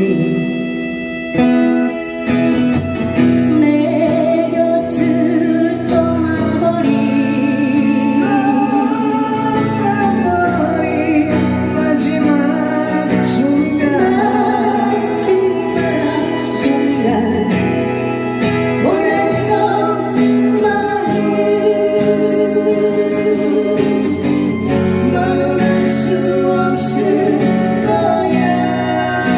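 A song performed with a wavering sung melody over guitar accompaniment, continuing without pause.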